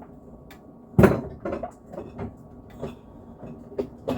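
Kitchen items being handled: a sharp knock about a second in, then a series of lighter clunks and clicks, like a cupboard door and containers being moved about.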